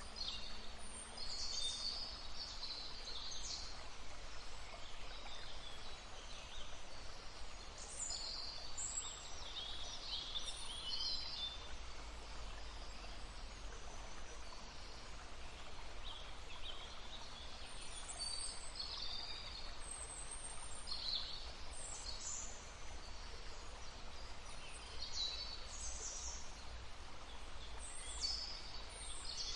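Songbirds singing in short bursts of high chirps and trills, several phrases overlapping, over the steady murmur of a babbling brook.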